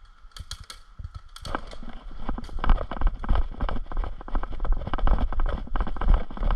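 Quick, irregular footsteps of a person running over rough ground, with heavy thuds and knocking on the body-worn microphone. A few sharp clicks come first, and the running starts about a second and a half in.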